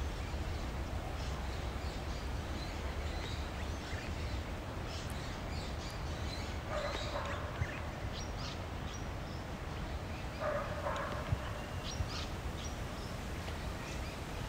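Outdoor ambience: small birds chirping now and then, and twice a longer animal call from further off, over a steady low wind rumble.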